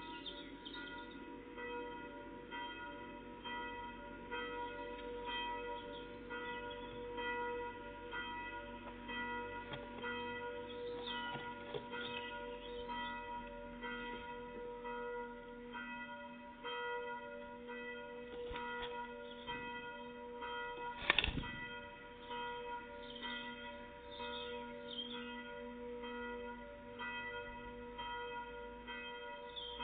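Church bells ringing steadily, their long tones overlapping without a break, with short high bird chirps over them and a single sharp knock about two-thirds of the way through.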